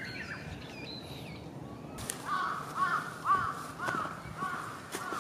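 Birds in leafy woodland: a few high chirps, then from about two seconds in a crow cawing about six times in a row, roughly twice a second, over a faint steady outdoor background.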